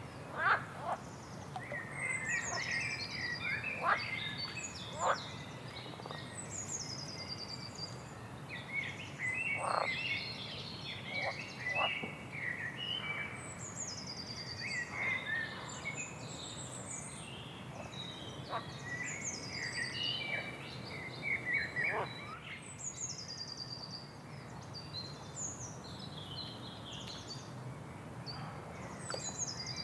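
Small songbird singing: high, falling phrases repeated every couple of seconds over quicker twittering chirps, with scattered sharp clicks and a steady low background hiss.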